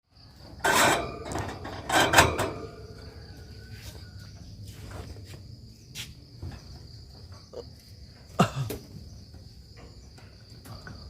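An insect's steady high-pitched trill, with a few loud knocks and rustles about one and two seconds in and a sharp knock about eight and a half seconds in.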